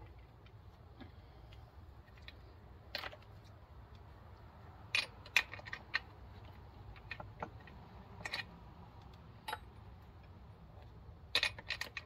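Small metal parts and hand tools clicking and clinking as a chainsaw is taken apart by hand: scattered sharp taps with a denser run of clinks near the end.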